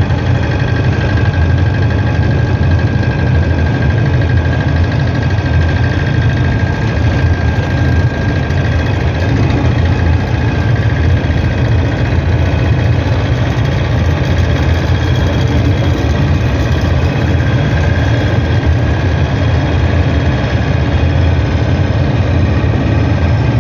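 Steady engine and road noise of a moving car, heard from inside the cabin: a constant low rumble with a faint steady whine above it.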